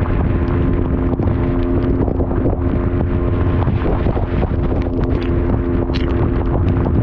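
Honda NSR two-stroke motorcycle engine running at cruising speed with a steady note, under heavy wind buffeting on the microphone and the hiss of rain and tyre spray on a soaked road.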